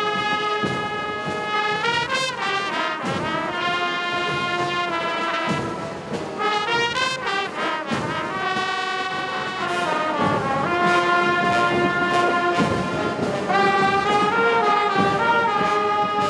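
Small brass band of trumpets playing a melody in long held notes, with drum strokes underneath.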